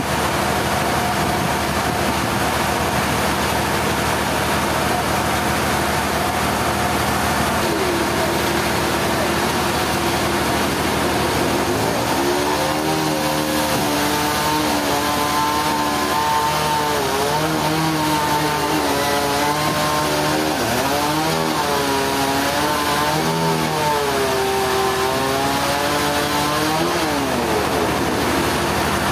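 Engine running under a steady loud machine noise; about a third of the way in its pitch begins rising and falling repeatedly, as with changing load or throttle, then settles near the end.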